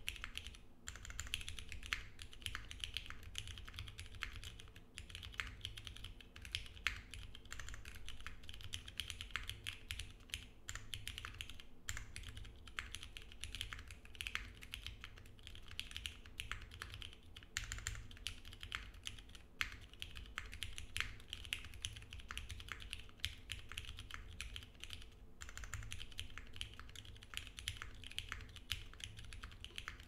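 Continuous typing on a 60% mechanical keyboard with a POM plate in an unfoamed o-ring-mounted case, Cherry MX Brown tactile switches with switch films, and GMK keycaps: a fast, steady run of keystrokes with short breaks about twelve seconds in and again near twenty-five seconds.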